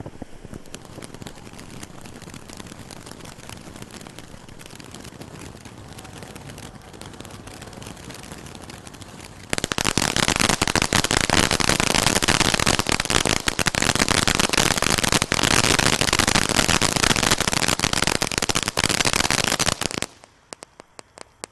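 Black Cat 'In Living Color' firework fountain burning with a steady hiss and crackle as it throws coloured sparks. About ten seconds in it turns much louder, with dense rapid crackling as it sprays white crackling sparks. Near the end this cuts off suddenly, leaving a few scattered pops.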